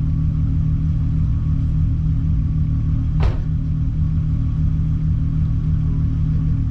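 Mk3 Volkswagen Golf engine idling steadily, with one brief click about three seconds in.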